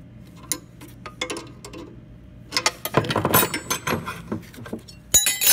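Steel open-end wrenches clicking and clinking against a brass check valve and its flare nut as the nut is worked loose, with a busy run of metal rattles in the middle. A sharp metal clank with a short ringing tail comes near the end.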